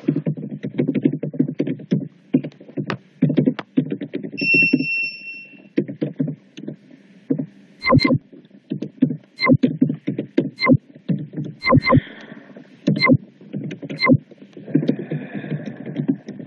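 Background electronic music with a steady, busy beat of low pulses and sharp percussive hits, and a short held synth note about four and a half seconds in.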